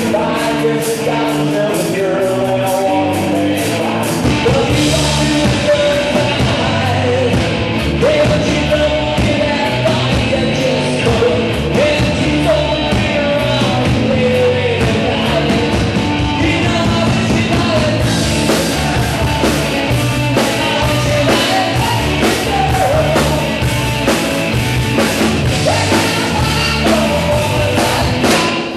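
Live rock band playing a song, with a man singing lead over the band.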